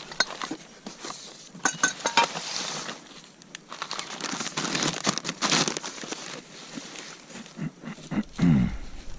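Packaging crinkling and rustling as sawmill hardware is unwrapped and handled, in irregular bursts with scattered small clicks. A short low sound falling in pitch comes near the end.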